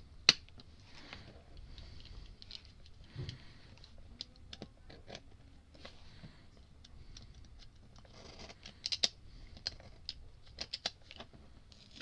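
Fingers and nails picking, scratching and peeling at the layered cardboard of a jersey trading card: scattered small ticks and scrapes, with a sharp click just after the start and a burst of louder clicks around nine to eleven seconds in.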